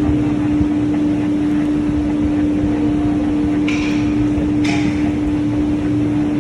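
CNC machine humming steadily on one low, unchanging tone over a rumble, with two brief hissing sounds about four and five seconds in.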